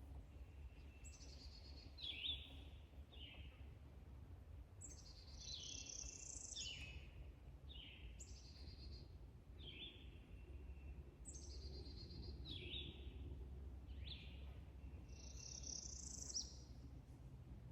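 A songbird singing, its phrases of short high whistled notes repeating every few seconds, over a steady low background rumble.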